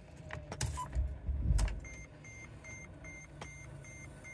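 Keys jangling with a few knocks, then a van's dashboard warning chime beeping rapidly and evenly, about two and a half beeps a second, starting a little under two seconds in.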